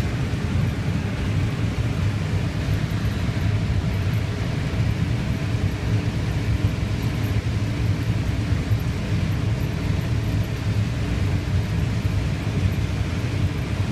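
Combine harvester running while picking corn, heard from inside the cab: a steady low drone of engine and threshing machinery.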